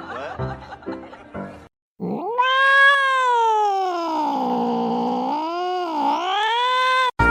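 Background music for about the first second and a half, then a domestic cat yowling in one long, wavering call of about five seconds that cuts off suddenly near the end.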